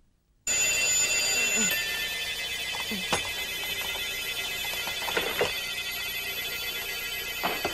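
Alarm clock bell ringing without a break, starting about half a second in.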